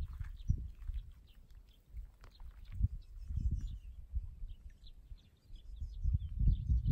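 Wind gusting on the microphone in uneven swells, with faint, scattered chirps of small birds.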